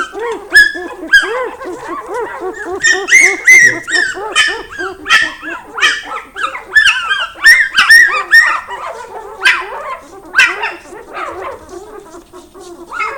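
A litter of Norwegian Lundehund puppies yelping and whining, many short high-pitched squeals overlapping one another, thinning out near the end.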